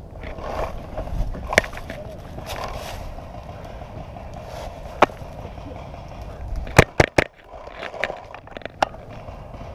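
Paintball markers firing sharp single pops, with a quick burst of three shots about two-thirds of the way through. Between them, rustling and scuffing as the player moves crouched over leaves and dirt.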